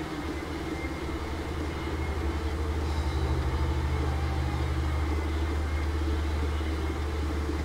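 A steady low machine hum with a faint pulsing rumble; a second, slightly higher hum tone drops out about five seconds in.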